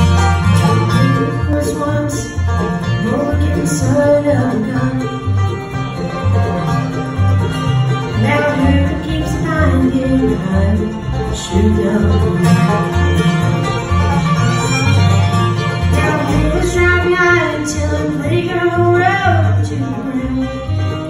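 Live bluegrass band playing an instrumental passage on fiddle, acoustic guitar, mandolin, banjo and upright bass, the bass keeping a steady pulse of low notes under the melody.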